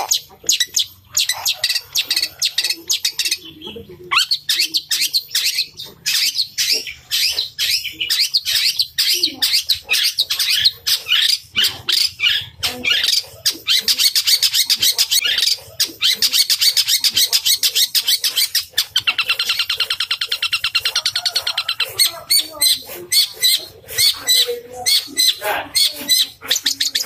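Long-tailed shrike (cendet) singing vigorously: a fast, almost unbroken run of sharp chirps and chattering trills, with the mimicked sparrow calls that cendet keepers prize.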